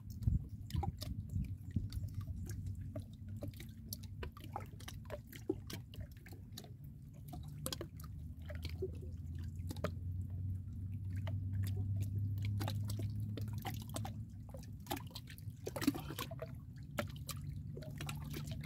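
Water dripping and lapping, with many small scattered clicks and ticks, over a low steady rumble that swells in the middle.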